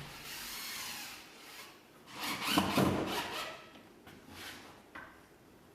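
Wooden board rubbing and scraping against a corrugated Onduline bitumen sheet as the sheet is pressed down onto a curved roof. The scraping comes in two stretches, the louder one about two seconds in, followed by a few light knocks.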